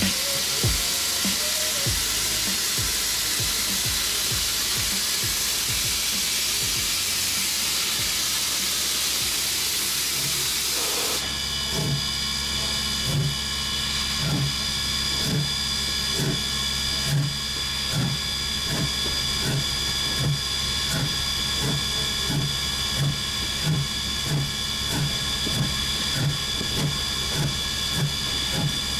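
1910 Swedish-built E2 steam locomotive: a steady hiss of steam at first. From about eleven seconds in come even exhaust chuffs, a little over one a second, as it moves slowly, over a high steady hiss.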